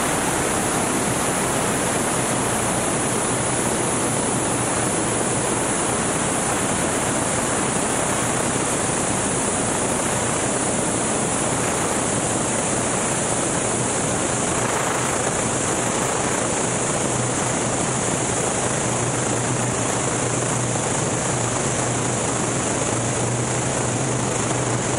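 Steady rush of air and runway rumble on a Formula One air racer's onboard camera as the plane rolls out after landing and slows down, with its Continental O-200 engine idling underneath. The engine's low hum comes through more clearly over the last few seconds.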